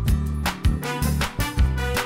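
Background music with a steady beat, drum hits and a bass line.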